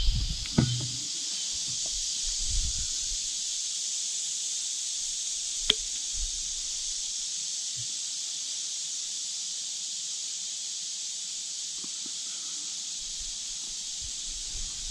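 Steady, high-pitched insect chorus, with a few soft handling knocks in the first second and a single sharp click about six seconds in.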